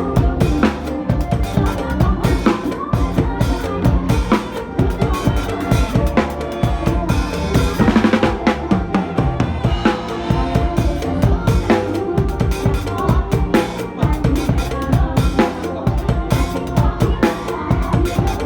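Drum kit played with a driving mor lam dance beat of bass drum, snare and rimshots, over the song's backing music.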